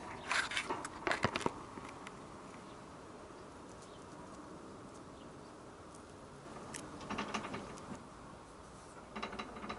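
Light handling noises from hands on a motorcycle wheel: scuffs and small clicks as fingers rub and grip the tyre and rim, in short bursts in the first second and a half, about seven seconds in, and near the end.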